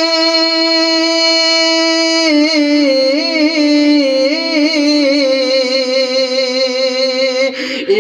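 A single voice singing a nazm melody. It holds one long note, then drops a little lower about two seconds in and winds through slow melodic turns until just before the end.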